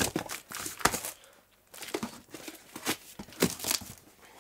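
Cardboard shipping box being handled and opened by hand: irregular rustling, tearing and sharp knocks of cardboard, with a short lull about a second and a half in.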